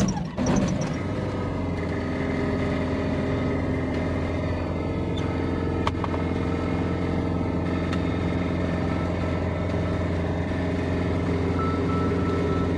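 Light aircraft's piston engine starting: a brief uneven burst, then it catches about a second in and settles into a steady idle. Heard from inside the cockpit.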